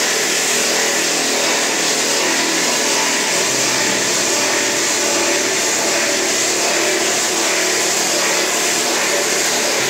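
Hydraulic tunnel drill rig drilling holes into the rock at the tunnel crown for pipe roofing, its drill boom and power pack giving a loud, steady mechanical din. The low hum shifts slightly about a third of the way in.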